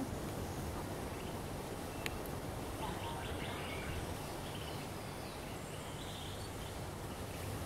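Steady outdoor background noise with a low rumble, and faint bird calls about three and six seconds in; a single click about two seconds in.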